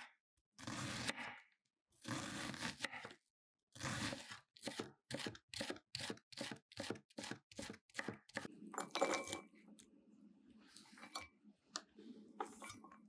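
Chef's knife cutting a raw onion on a wooden cutting board: a few slow slicing strokes, then a run of quick chops about three a second as the onion is diced. About nine seconds in comes one longer, louder scraping noise, followed by a few softer strokes.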